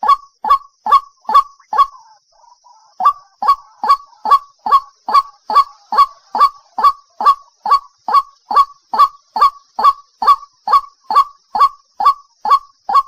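White-breasted waterhen calling 'cuốc cuốc': a loud, fast, even series of short notes, each dropping in pitch, about two and a half a second, broken by a short pause about two seconds in and then resuming.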